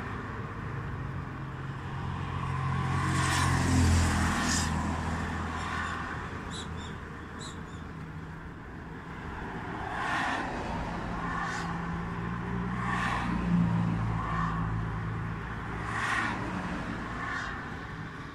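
Road traffic: cars passing one after another over a steady low engine hum, swelling and fading several times.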